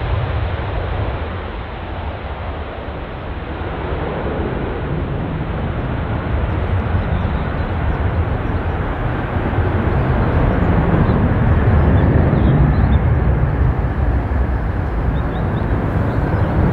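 Airbus A350-1000's twin Rolls-Royce Trent XWB turbofans at takeoff thrust: a deep, steady jet roar with heavy low rumble, growing gradually louder as the airliner lifts off and climbs away.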